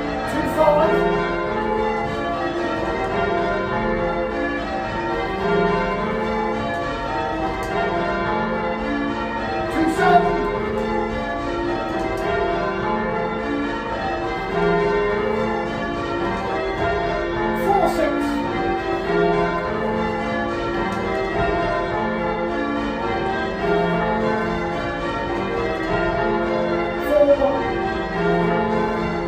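Ring of eight church bells in change ringing, a steady unbroken stream of strikes: a Gillett & Johnston octave of 1937 with two 1750 Thomas Wroth bells tuned to match, tenor in F. A few brief sliding sounds rise over the ringing.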